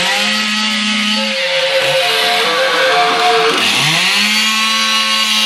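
Chainsaw engine revved up twice: each time the pitch climbs quickly, holds at high speed for a second or more, then drops back. The second rev begins about three and a half seconds in.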